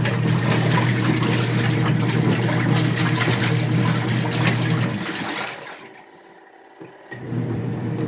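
Twin-tub portable washing machine on its rinse cycle: the wash motor hums steadily while the impeller churns clothes and water. About five seconds in the motor stops and the tub goes quieter, then it starts again a little after seven seconds as the impeller changes direction.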